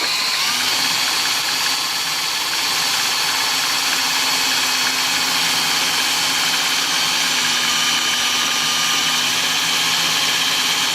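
Electric drill running steadily at speed, driving a tool post grinder, with a continuous high whine over a hiss.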